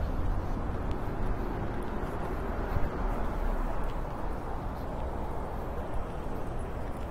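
Steady hum of road traffic along a city street, with a low rumble near the start that eases off after a second or so.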